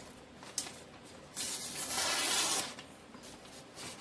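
Air from a running electric fan blowing across the microphone: a single light click, then a hissing rush of about a second.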